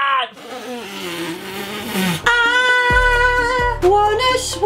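Edited-in soundtrack: a sound effect that falls in pitch for about two seconds, then music of long held notes over a pulsing bass.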